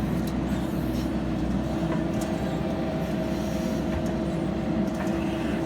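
JCB backhoe loader's diesel engine running steadily with an even hum, with a few faint clicks over it.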